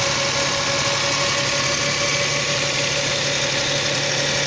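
Steady mechanical hum of a running engine or motor, with a constant low tone and no change in speed.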